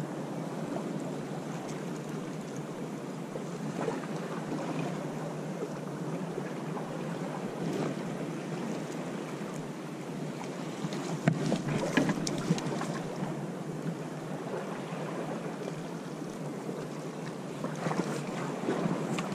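Steady wind noise on the microphone with sea water lapping against the rocks, broken by a few short sharp sounds about eleven to twelve seconds in and again near the end.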